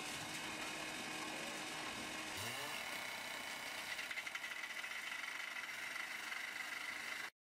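An engine running steadily, with a short rising whine about two and a half seconds in and a high, fluttering whine through the second half. The sound cuts off abruptly just before the end.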